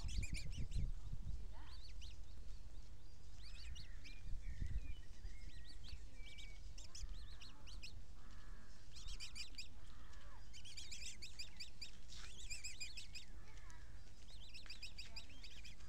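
Birds calling: repeated bursts of quick high-pitched chirps, densest in the second half, with a few lower sliding calls in between, over a steady low rumble.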